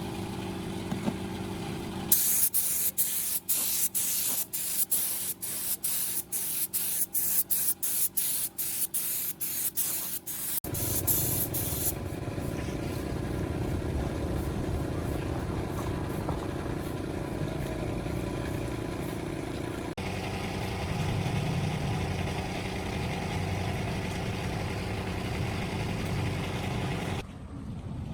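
A high spraying hiss in quick repeated bursts, between two and three a second, for about eight seconds. It then gives way to a steady, duller rushing noise.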